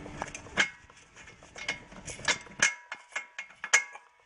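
Hand tools working the front strut-to-knuckle bolts: a quick run of clicks at the start, then scattered sharp metallic clicks and clinks, several of them ringing briefly.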